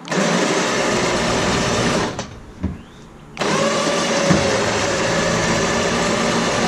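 Electric winch motor whining under load as it pulls a heavy vehicle, in two runs: about two seconds, a short pause, then about four seconds.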